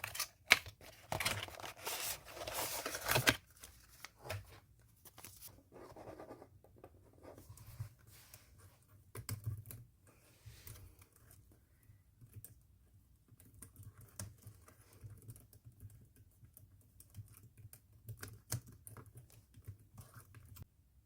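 Packaging torn open with a loud tearing rustle for about three seconds, then quieter scattered small clicks and rustles of handling.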